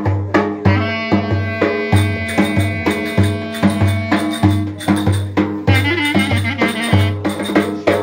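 Clarinet and davul (large double-headed bass drum) playing a Turkish folk dance tune (oyun havası). The clarinet holds long notes, then breaks into quick ornamented phrases about halfway through, over a steady drum beat.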